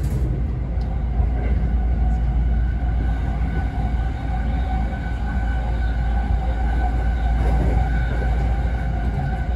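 Running sound heard inside a JR East E217 series Green car, a double-deck car: a steady low rumble of the wheels on the rails, with a steady hum held above it.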